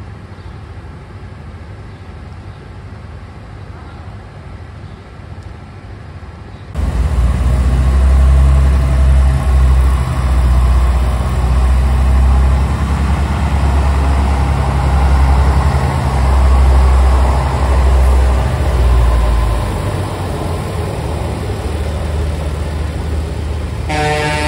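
Tram running with a steady low rumble that gets much louder after an abrupt change about seven seconds in. A horn gives a short toot near the end.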